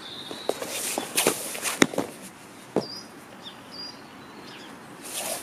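Two people executing an aikido irimi nage throw on foam mats: feet scuffing and stepping, gi fabric swishing, and a few sharp thuds as the thrown partner lands, the loudest about two seconds in. Small birds chirp in the background.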